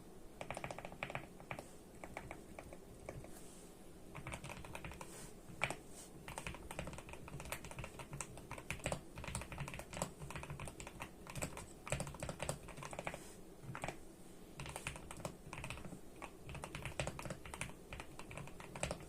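Typing on a GMK87 mechanical keyboard with hand-lubed Gateron Milky Yellow Pro linear switches: fast runs of keystroke clacks, with a short lull about two to four seconds in.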